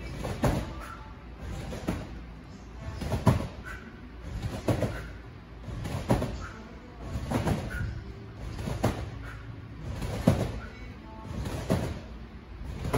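Trampoline bed and springs sounding each time a gymnast lands on it during a routine: a regular thud about every one and a half seconds, nine in a row.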